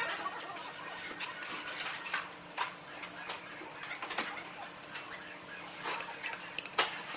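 Eating sounds sped up: quick irregular clicks of a spoon and chopsticks against ceramic bowls and dishes, with chewing, running fast and pitched up.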